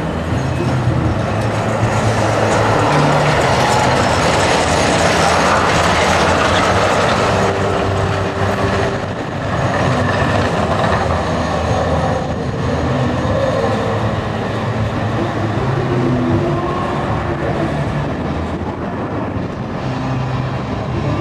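Street trams running on street track, their wheels rumbling on the rails and motors humming as they come closer. The sound is loudest a few seconds in.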